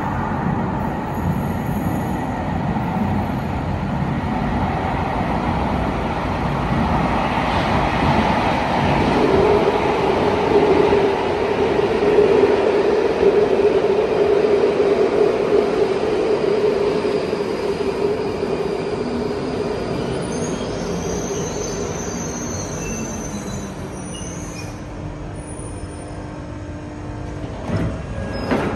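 London Underground 1995 stock Northern line train arriving at a tube platform. A rumble builds as it comes out of the tunnel, and a steady whine joins about a third of the way in as it runs alongside the platform. High squeals come in as it slows, then the sound dies down as it stops, with a short sharp sound near the end.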